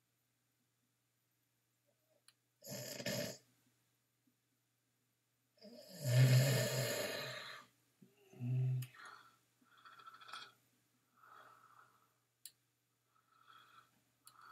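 A man making snoring noises: three noisy snoring breaths, the middle one longest and loudest, followed by a few fainter short hums and mumbles toward the end.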